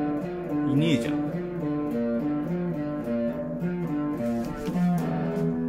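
Background music: a guitar melody of stepped single notes, with a quick swooping note about a second in.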